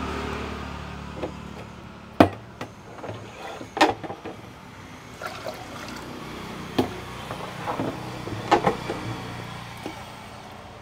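Scattered clinks and knocks of kitchen utensils and vessels, a few seconds apart, over a steady low hum.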